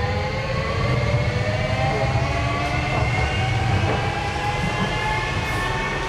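Docklands Light Railway train running, its electric traction motors whining in several tones that climb slowly in pitch as it gathers speed, over a steady low rumble of wheels on track.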